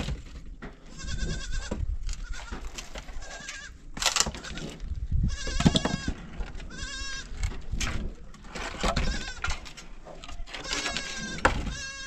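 Goats bleating over and over, each call a wavering, quavering cry. A few sharp knocks and cracks from a dry wooden branch being worked and broken come through between the calls.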